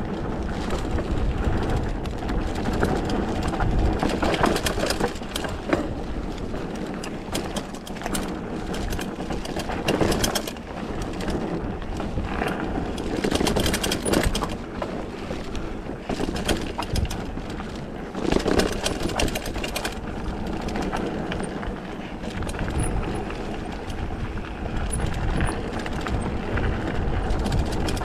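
Mountain bike riding down a rough trail: continuous tyre and gravel noise with frequent clattering rattles from the bike, and wind rumbling on the microphone.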